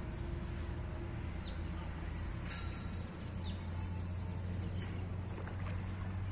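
Outdoor pond-side ambience: a steady low hum with a few faint bird chirps, and one brief sharp snap or click about two and a half seconds in.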